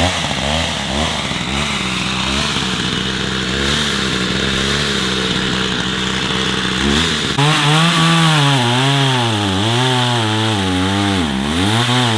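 Chainsaw's two-stroke engine running, not yet warmed up. It holds a steady speed for about seven seconds, then runs at higher revs that repeatedly sag and pick up again, about once a second, as when cutting into hard wood.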